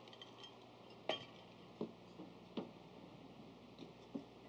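Ice cubes clinking as they are dropped into a glass: four or five separate short clinks, the loudest about a second in.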